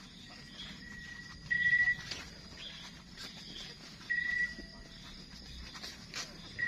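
Animal calls: a high note held at one steady pitch for about half a second, heard three times (the first faint), over a faint continuous high drone, with a few light clicks.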